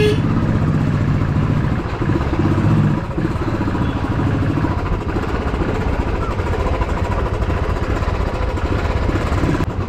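Motorcycle engine running at low speed, heard from the rider's seat as a steady, rapid low pulsing.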